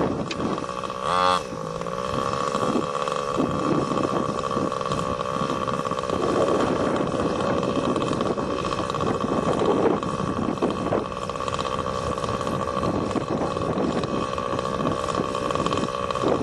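Small glow-fuel (nitro) engine of an RC buggy running with a steady, high-pitched drone, its pitch wavering slightly, with a short rising-and-falling sweep about a second in.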